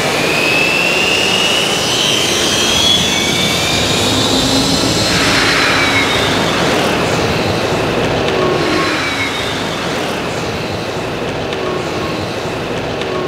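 Mikado Logo 700 electric RC helicopter flying, its motor and rotors whining. The pitch rises over the first five seconds, then holds, and the sound grows a little quieter near the end.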